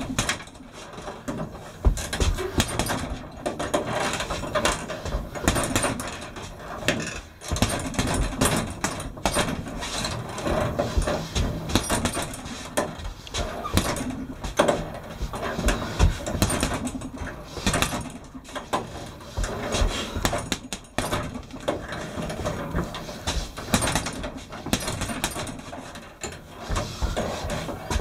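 Boxing gloves punching a hanging heavy bag: irregular thuds in quick combinations, a few landing much harder than the rest.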